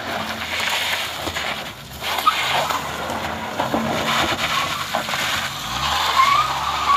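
A vehicle's engine running under load on a steep climb, with steady tyre noise over loose gravel and broken road surface.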